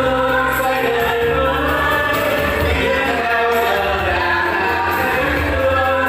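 A small group of singers singing a Vietnamese song together in unison over an instrumental backing track with a steady bass line.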